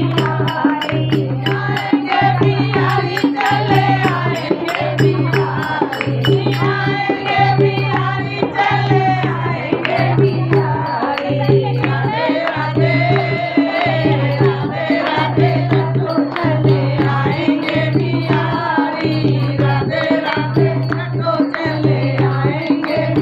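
A group of women singing a Hindi devotional bhajan together, with a dholak drum keeping a steady beat about once a second and small hand percussion alongside. Bright metallic jingling is prominent during the first several seconds, then fades back.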